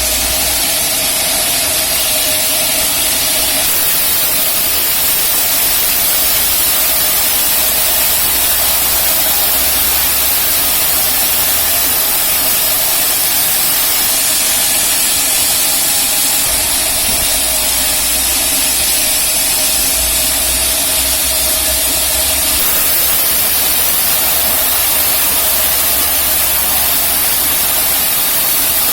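Rail-mounted band sawmill running and sawing a large teak log: a loud, steady hiss over a low hum, with a faint held tone.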